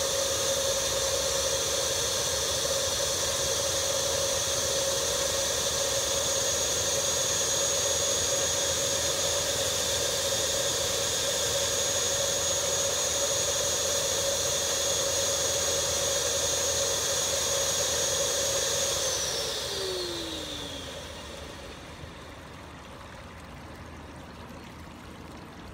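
Oase PondoVac Classic pond vacuum motor running steadily with a high whine, then switching off about three-quarters of the way through, its whine falling in pitch as it winds down. The stop is the machine's suction-then-drain cycle: the single collection chamber is full and the motor pauses while the chamber empties.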